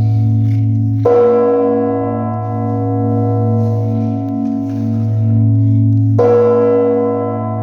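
Orthodox church bells ringing: a deep bell hums and rings on throughout, and it is struck again twice, about a second in and about six seconds in, each stroke bringing a bright clang of overtones that slowly dies away.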